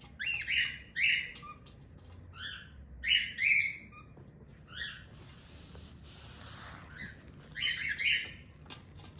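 Cockatiel chirping: short, repeated chirps that rise and fall in pitch, coming in clusters. Midway there is a soft hiss lasting about two seconds.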